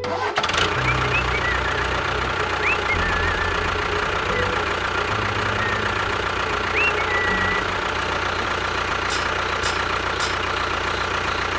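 A miniature DIY tractor's small motor running steadily, with a few short high chirps over it.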